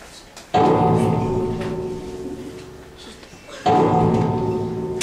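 Music: a loud, deep keyboard chord struck twice, about three seconds apart, each ringing on and slowly fading.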